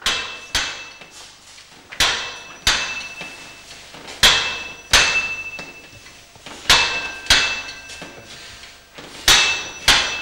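Metal-on-metal clanging in pairs, five pairs about two and a half seconds apart, each strike ringing briefly.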